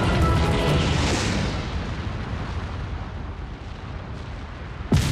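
Deep rumble of a volcanic eruption fading away over a few seconds, then a sudden loud explosive blast near the end.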